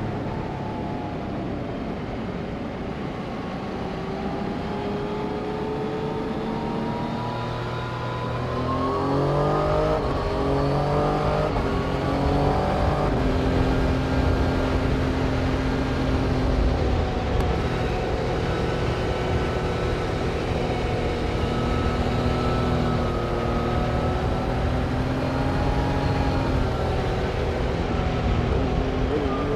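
Motor vehicle engines running, with the pitch rising as the revs climb about eight to ten seconds in, then holding at fairly steady revs.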